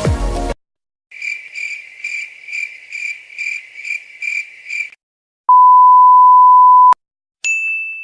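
A run of editing sound effects: crickets chirping about two and a half times a second for nearly four seconds, then a loud steady censor bleep for about a second and a half, then a short high ding that fades out.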